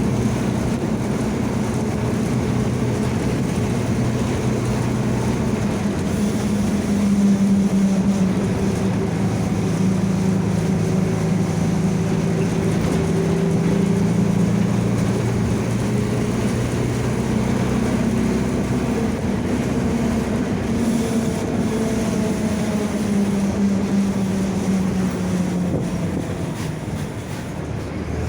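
Mercedes-Benz OF-1722M city bus running on the road, with its differential growling: a steady drone that shifts gently in pitch as the bus speeds up and slows.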